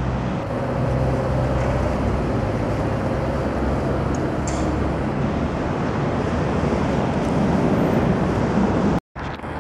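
Tatra tram rolling slowly toward the listener over worn track: a steady low electric hum with wheel-on-rail rumble and a faint whine in the first half. The sound drops out briefly near the end and comes back as a quieter steady background.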